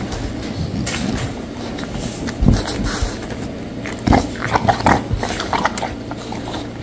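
French bulldog eating a snack from a hand, with a run of quick chewing and mouth clicks from about four seconds in.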